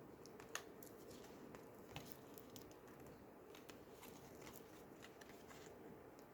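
Faint, scattered clicks and light rustles of oracle cards being handled and turned over, with a slightly louder tap about half a second in and another at two seconds.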